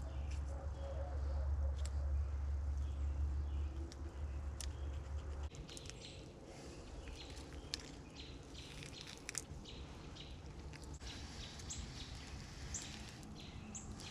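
Birds chirping in woodland, with short high calls scattered through and thickest in the second half. A low rumble on the microphone lasts for the first five seconds or so, and faint clicks and rustles come and go.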